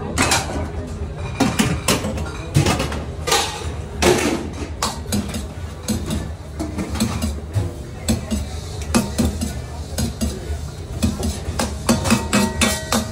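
Long-handled metal ladle clanking and scraping against a stainless steel wok as noodles and shrimp are stir-fried, with many quick, irregular clinks, over a steady low hum.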